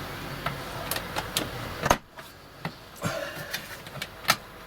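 Short sharp clicks and knocks of hard plastic roof-light parts being handled and pressed into place, the loudest about two seconds in and again near the end. A steady hiss lies under the first two seconds.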